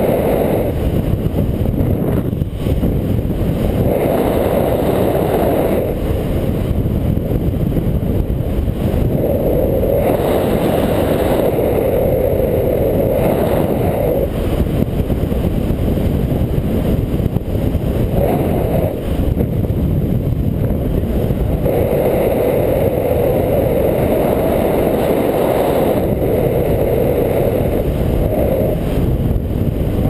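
Wind rushing over an action camera's microphone in paraglider flight: a loud, steady rumble that swells every few seconds.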